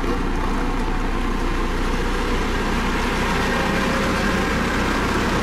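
Dynapac CC522 tandem asphalt roller's diesel engine running steadily with a low hum as the machine rolls over fresh asphalt.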